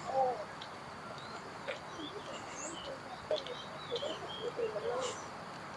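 Several birds calling: short, wavering low calls, the loudest just after the start and again over the last two seconds, mixed with brief high chirps.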